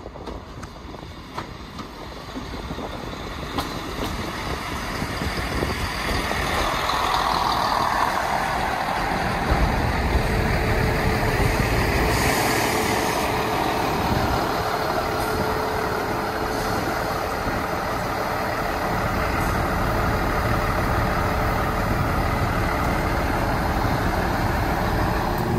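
A vehicle running, growing louder over the first eight seconds or so and then holding steady.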